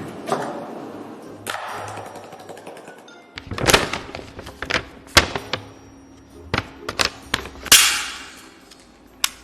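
A run of sharp knocks and taps, some with brief swishes, over faint background music.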